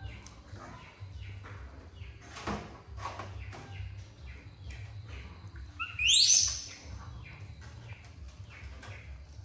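A baby monkey gives one loud, high squeal that rises sharply in pitch about six seconds in. Small clicks and taps run throughout, with a knock about two and a half seconds in.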